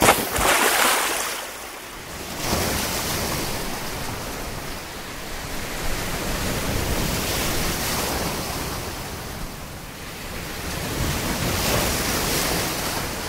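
Sea surf: waves breaking and washing in, a steady rush of water that swells in surges, with wind buffeting the microphone.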